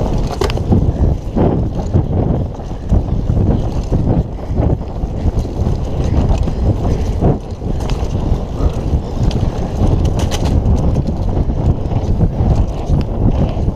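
Kona Operator downhill mountain bike descending a dirt trail at speed: wind buffeting the microphone and a steady rumble of tyres on dirt, with frequent sharp rattles and knocks from the bike over bumps.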